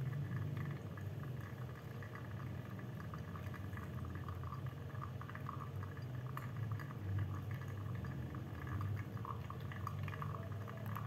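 Hot water from a gooseneck kettle pouring in a thin stream onto wet coffee grounds in a V60 dripper, a soft bubbling trickle, poured on and off as a pulse pour of the brew. A low steady hum runs underneath.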